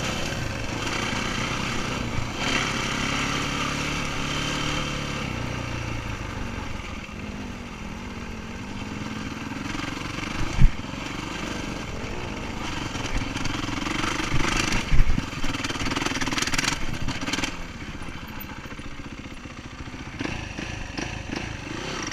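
Dirt bike engine running as it is ridden along a rough trail, its revs rising and falling over and over, with a few sharp knocks along the way.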